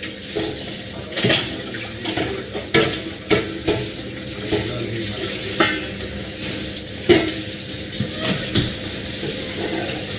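Cooking sounds: a steady sizzle of food frying, with metal utensils and steel pots knocking and clinking against each other every second or so.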